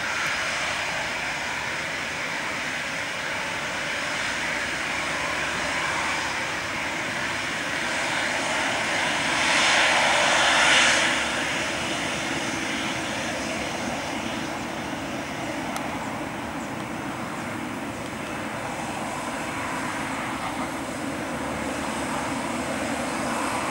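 Jet engines of a Boeing 737-800 airliner at taxi power as it rolls past, a steady rushing whine. It swells to its loudest about ten seconds in as the aircraft passes closest, then eases back to a steady level.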